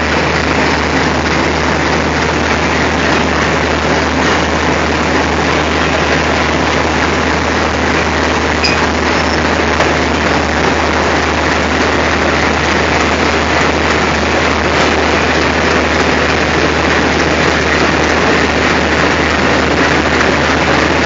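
Diesel locomotive engine running steadily at close range: a loud, even rumble over a steady low hum.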